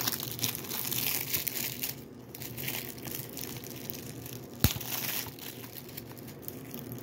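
Plastic shrink-wrap on a Blu-ray case being peeled off and crinkled by hand, with uneven crackling. A single sharp click about two-thirds of the way through.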